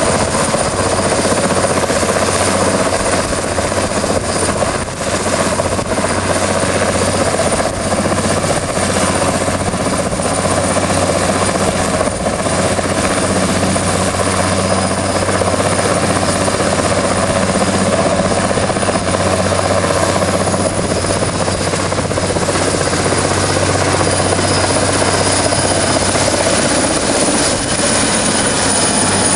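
Sikorsky S-64 AirCrane heavy-lift helicopter running steadily and loudly: a dense rotor and twin turboshaft engine din with a constant high turbine whine.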